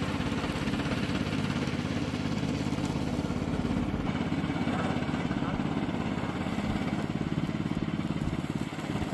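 Gasoline engine of a remote-control lawn mower running steadily with a rapid, even pulse.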